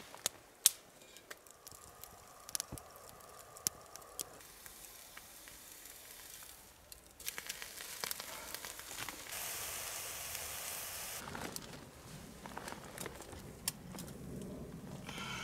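Small wood fire crackling with scattered sharp pops in a Bush Box folding wood-burning stove, then a steady sizzling hiss for about four seconds, starting some seven seconds in, as food cooks on the stove.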